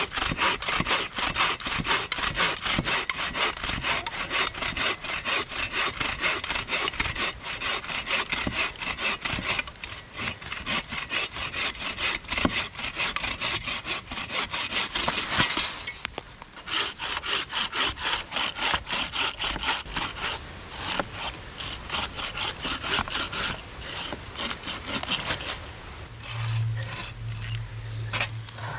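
Hand bucksaws cutting through a dead log, with steady, fast back-and-forth strokes of the blade in the wood. The first saw is a folding bucksaw. About halfway through the sawing changes to a wooden-frame bucksaw and runs on a little quieter. A low steady hum comes in near the end.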